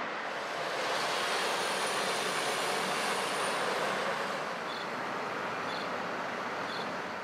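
Road traffic noise: vehicles passing on a wide city street, with one passing loudest in the first half. Three faint short beeps about a second apart can be heard near the end.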